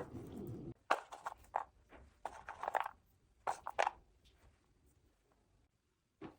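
Kitchen handling noises: a sharp click at the start, then a few short scraping or rustling strokes during the first four seconds, followed by a near-quiet stretch.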